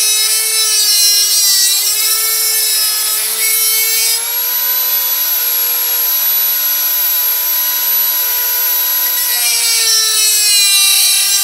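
Dremel rotary tool running at high speed, carving decoration into a sword's guard and pommel; its high whine wavers and dips in pitch as the bit bears into the work, and holds steadier through the middle.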